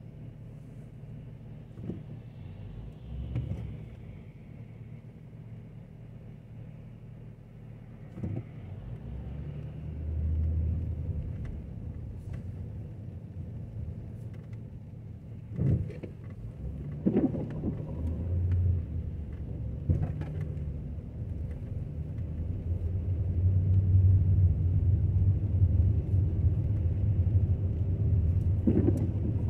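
Low rumble of a car driving slowly on wet pavement, heard from inside the cabin. It grows louder in the last several seconds, with a few scattered thumps.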